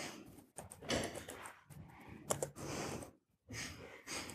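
Faint, irregular clicks and rustles of typing on a laptop keyboard at a lectern.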